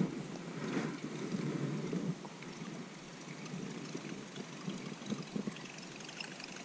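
Light rain falling, heard as a steady hiss, under an uneven low rumble on the microphone.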